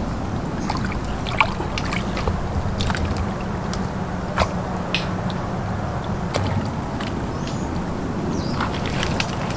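A bare arm groping in a water-filled mud crab burrow in mangrove mud: muddy water sloshing and trickling around it, with scattered sharp clicks throughout.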